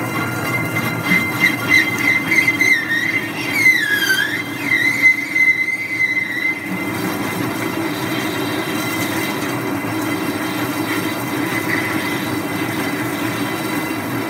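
A metal lathe takes a heavy cut through the flange of a Volvo portal axle's stub axle, with a steady low hum of the cut throughout. For the first six seconds or so a high, wavering whine rides over it, dipping in pitch around four seconds, then fades. This is the sound of the cut changing as the flange is machined thinner.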